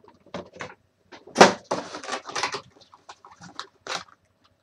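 Cardboard box and plastic packaging of an action figure being handled and opened: irregular clicks, scrapes and crinkles, with one louder knock about a second and a half in.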